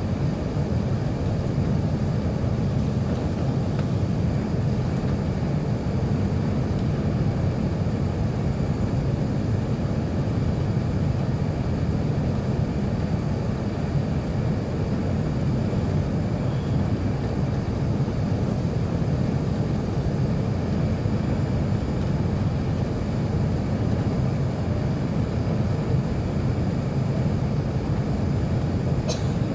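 Steady cabin roar of an Airbus A380 descending on approach with flaps extended: engine and airflow noise heard inside the passenger cabin, deep and even, with a few faint steady high tones. A brief tick sounds near the end.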